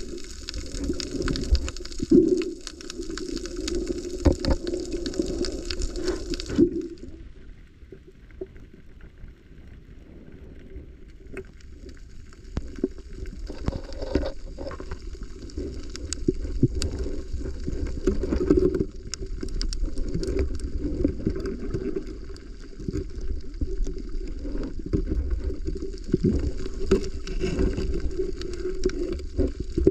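Muffled underwater sound heard through a camera's waterproof housing: a low rumble of moving water with scattered sharp clicks and crackles. The sound goes duller and quieter about six seconds in, then fills out again from about eleven seconds.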